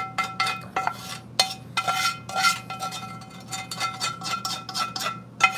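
A metal utensil scraping and clinking against a heavy black skillet: a run of quick, irregular scrapes and taps as gravy is scraped out of the pan.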